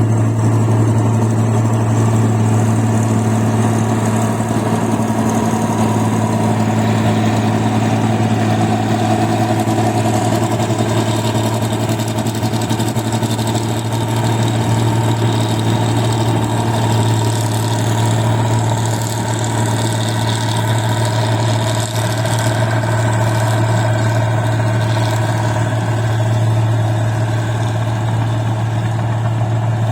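Rice combine harvester engine running steadily with a strong low hum and mechanical whirring over it, dipping slightly in level about two-thirds of the way through.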